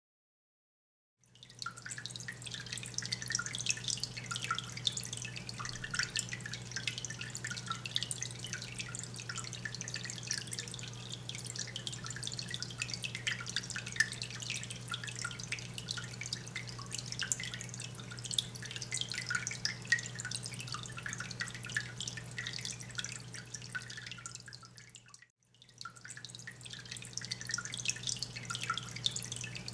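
Aquarium water trickling and dripping in a rapid, irregular patter of small splashes, over a steady low pump hum. The sound drops out briefly near the end, then resumes.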